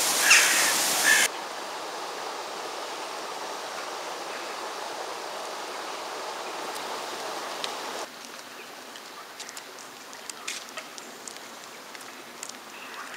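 Steady outdoor noise like running water, which drops abruptly to a quieter background about eight seconds in. Faint, brief high chirps or ticks are scattered through the quieter part.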